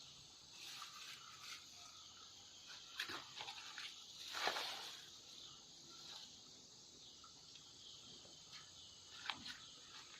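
Faint riverside ambience: a steady high chirring of insects, with a few soft rustles, the loudest about four and a half seconds in.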